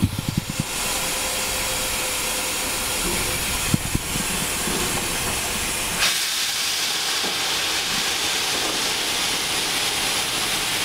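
Steam locomotive letting off steam: a steady loud hiss that starts just under a second in and turns brighter and higher about six seconds in, with a few knocks at the very start and a single knock near four seconds.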